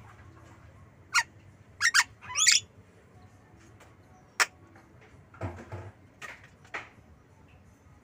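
Javan myna calling close by: a few short, sharp calls, including a quick pair about two seconds in, then a longer wavering note. Another sharp call comes near the middle, followed by softer, rougher sounds.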